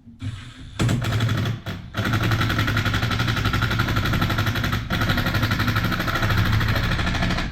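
Cordless impact driver hammering as it drives fasteners tight: a short burst, a brief pause, then a long run of about five seconds.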